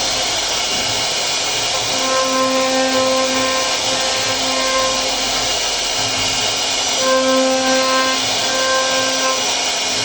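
CNC router carving wood: a steady hiss of the cutter, with a pitched whine from the machine's motors that comes and goes every second or so as the head moves.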